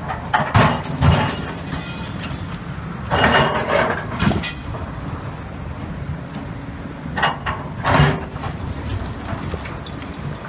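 Excavator engine running steadily while its bucket works through collapsed-building rubble, crashing and clattering concrete debris and steel rebar in three loud bouts: about half a second in, around three to four seconds in, and near eight seconds.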